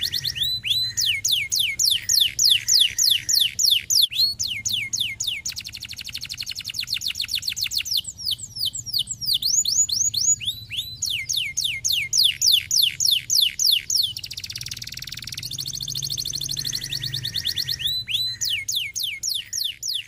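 Domestic canary singing: rolling phrases of quick high whistles that each sweep downward, repeated about four times a second, broken now and then by short buzzy trills.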